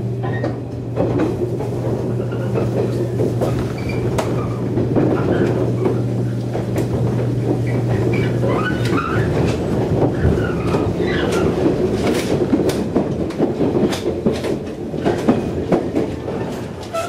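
JR 115 series electric train heard from inside the carriage while running: a steady rumble of wheels on rail with repeated clicks over rail joints. A steady low hum stops about halfway through.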